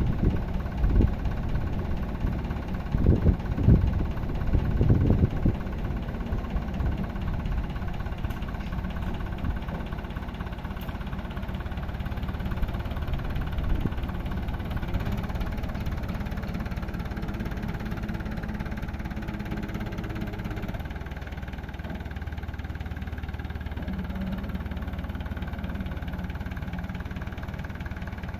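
Massey Ferguson 275 tractor's diesel engine running as the tractor is driven out, with several louder knocks and surges in the first five seconds. About two-thirds of the way through, the engine note drops to a lower, steady hum.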